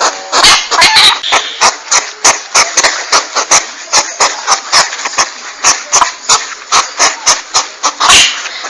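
Hedgehog calling: a fast, uneven run of sharp clicks, about four a second, over a breathy hiss.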